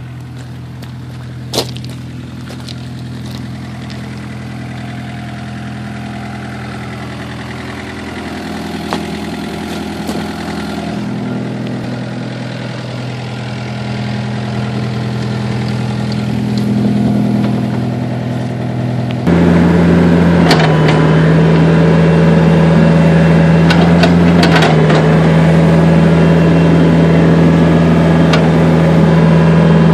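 John Deere 50C compact excavator's diesel engine running steadily at idle. There is a sharp click about two seconds in. The engine note shifts around eleven seconds in, then about two-thirds of the way through it suddenly steps up louder and higher, as when the throttle is raised, and it holds there.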